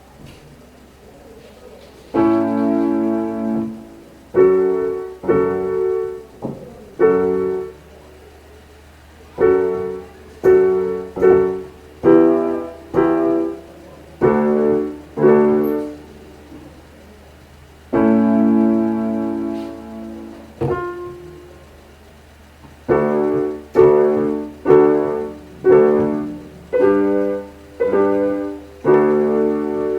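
Keyboard playing a tune in piano chords: groups of short struck chords that ring and die away, with a longer held chord opening some phrases and short gaps between them. The playing starts about two seconds in.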